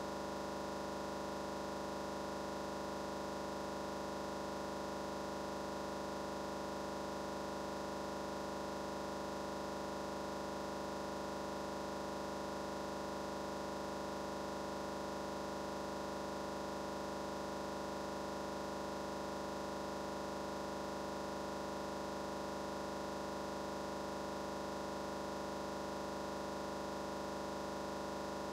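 A steady, unchanging electronic hum with hiss, made of several fixed tones that hold the same level throughout.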